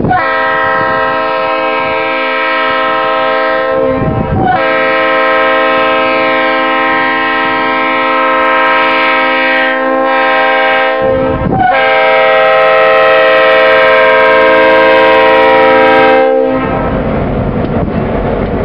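Diesel locomotive's multi-note air horn blown in three long blasts, the middle one the longest and the last the loudest, warning the road grade crossing. After the horn stops, the locomotive's engine and the train rumble close by, with wind noise on the microphone.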